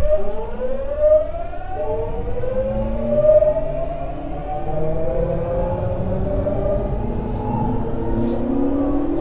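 Early Hitachi GTO-VVVF inverter and traction motors of a Tokyu 9000 series train accelerating from a standstill, heard inside the car: a whine of several tones rising together in pitch over the motor and rail rumble. Near the end the tone pattern shifts to a lower set that starts rising again, as the inverter changes its modulation.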